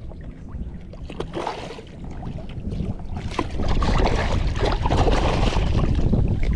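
Wind buffeting the microphone, getting louder about three and a half seconds in, mixed with water splashing and crackling as a hooked bonefish thrashes at the surface.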